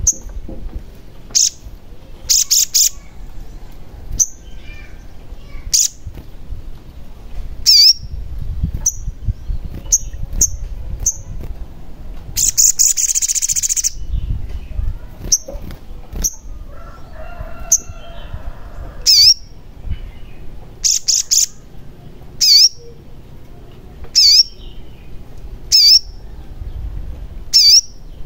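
Olive-backed sunbird (sogon) giving sharp, high chirping calls, singly and in quick runs of two or three, about every second, with one brief noisy rustle about halfway through.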